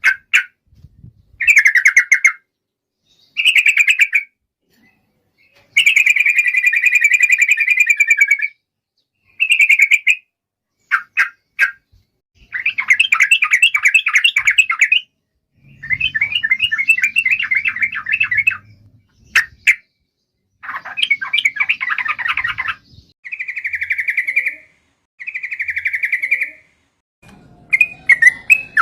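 Sooty-headed bulbul (trucukan) singing its rolling 'ropel' song: about a dozen bursts of fast trilled, buzzy notes, each one to three seconds long, separated by short pauses.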